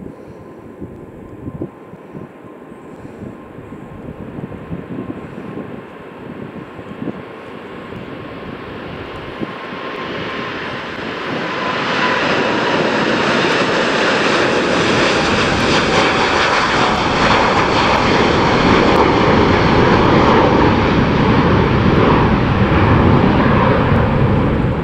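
Boeing 747-8F freighter's four GEnx-2B turbofan engines at takeoff thrust as it rolls, lifts off and climbs past: a jet roar that swells from about ten seconds in and stays loud, with a fan whine that slides down in pitch as the aircraft goes by.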